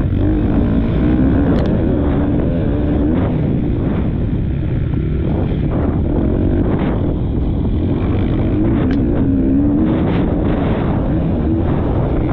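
Motocross bike engine running hard, its pitch rising and falling as the rider works the throttle, with heavy wind noise on a helmet-mounted camera's microphone. A few brief knocks cut through.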